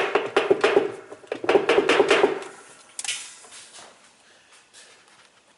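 Rapid clattering and rattling of plastic and metal in two bursts, then a shorter one about three seconds in, as a washing machine washplate is wrenched at on the transmission shaft it is fused to.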